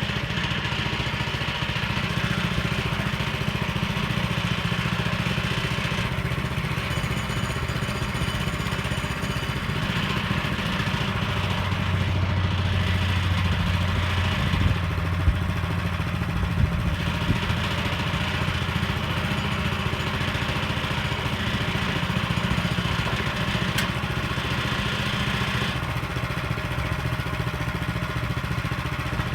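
Sawmill's engine running steadily, with a few sharp knocks about halfway through.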